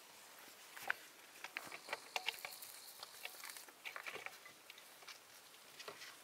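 Kittens scampering and play-fighting on weathered wooden planks: a quick, uneven run of light pattering and scratching from paws and claws on the boards, busiest in the first half.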